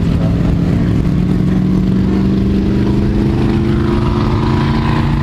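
Motor-vehicle engine running steadily through its exhaust, its note drifting slowly higher; it ends near the end.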